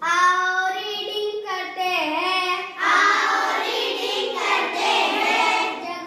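A child's high voice reciting words in a sing-song chant, drawing each syllable out for about a second.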